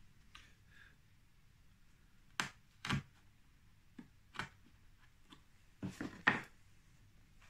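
A handful of sharp wooden clicks and knocks from a skinny chisel pressed by hand into a wooden glazing bar, paring out the waste between the tenon cheeks back to the knife line. The loudest knocks come about six seconds in, as the bar is handled on the bench.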